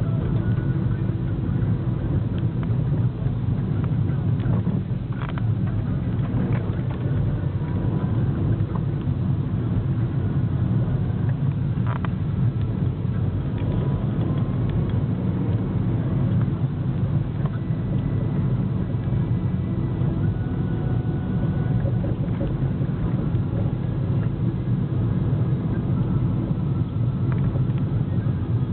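Steady car engine and road rumble heard from inside the cabin while driving at an even pace.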